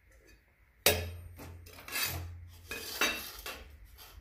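Thin steel cutouts and a steel square being set down and slid on a metal workbench: a sharp metallic clack about a second in, then scraping strokes of metal on metal.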